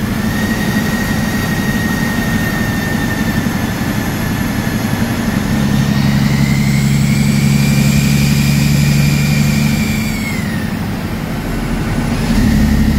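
Heavy truck's diesel engine running under way, heard inside the cab, with a high whine that rises about halfway through and falls away a few seconds later as the engine eases off. The engine picks up again near the end.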